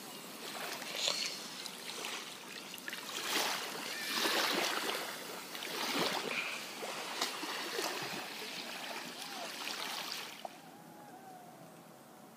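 Shallow lagoon water lapping and washing against a sandy shore in irregular surges, then dropping quieter about ten seconds in. A few faint gliding whistles come near the end.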